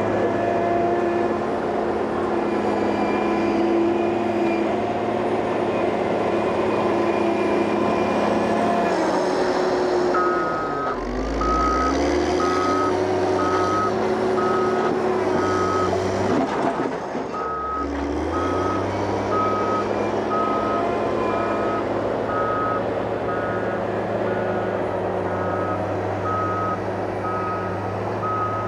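Heavy diesel construction machine running, its engine note dropping and climbing back twice. From about a third of the way in, a reversing alarm beeps steadily, a little faster than once a second, as the machine backs up.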